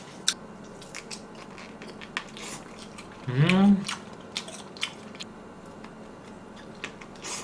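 Close mouth sounds of someone chewing a soft chicken-breast frankfurter: scattered wet clicks and smacks. About three and a half seconds in there is a brief hum of the voice that rises then falls.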